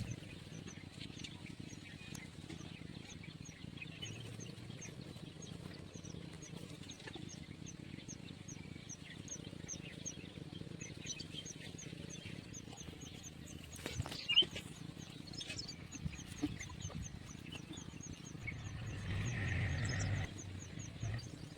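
Rural outdoor ambience: a high, short chirp repeated evenly about two to three times a second, over a low steady rumble. A sharp knock comes about two-thirds in, and a louder swell of noise comes near the end.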